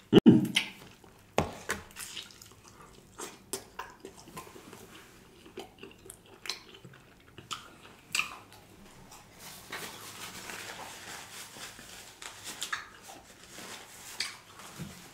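Close-miked wet chewing and lip smacking as a man bites into saucy meat on the bone and eats it: a string of short wet clicks, the loudest being the bite right at the start.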